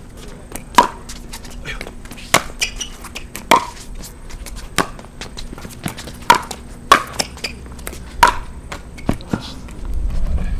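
Pickleball rally: sharp pops of paddles striking the hollow plastic ball, mixed with the ball bouncing on the hard court, roughly one to two hits a second. A low rumble comes up near the end.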